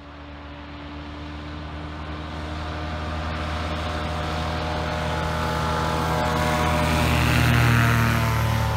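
Light propeller airplanes' engines running at high power as they approach, growing steadily louder. Near the end one passes close by, and its engine pitch drops as it goes past.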